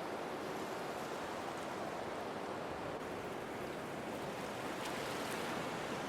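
Sea surf washing on a beach: a steady wash of waves without a break.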